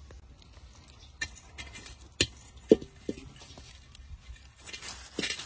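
Scattered knocks and short metallic clinks from a metal wok being handled over a wood fire, a few of them ringing briefly. Near the end comes a short rushing hiss.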